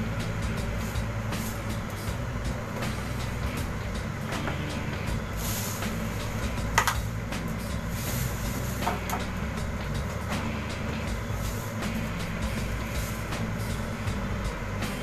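Steady electric hum and fan noise from an induction cooktop heating a pan of milk towards the boil. A sharp click comes about seven seconds in, and a fainter one near nine seconds.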